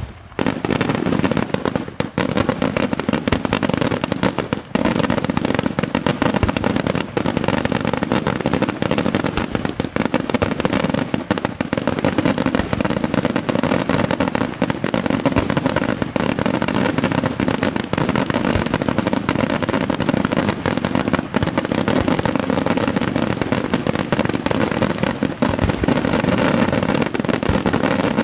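Daytime fireworks: a dense, continuous barrage of firecracker and shell bangs, loud and without let-up, crack following crack in rapid succession.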